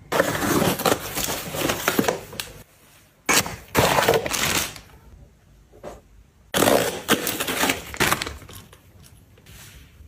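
Objects being handled by hand, rustling and clattering in three bursts.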